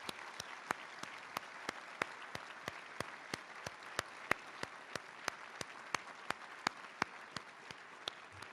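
Audience applauding, with a few nearby claps standing out about three times a second over the general clapping.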